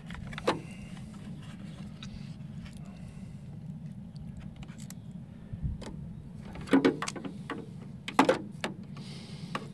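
Portable jump starter's spring-loaded battery clamps being handled and clipped onto a car battery terminal: a few sharp clicks and rattles of the clamp jaws and plastic, loudest near the end, over a steady low hum.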